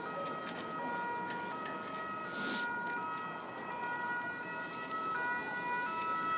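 Two-tone emergency-vehicle siren alternating between a lower and a higher note every second or so, growing a little louder toward the end. A brief rush of noise about two and a half seconds in.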